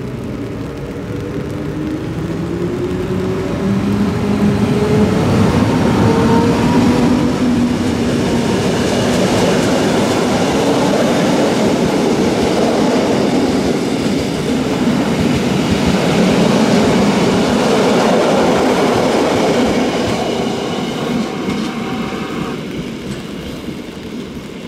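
Rhaetian Railway electric locomotive and its passenger coaches passing close by. Over the first few seconds the motors whine upward in pitch as the train gathers speed. Then the wheels run loudly over the rails, with some clacking, and the sound fades as the train moves away near the end.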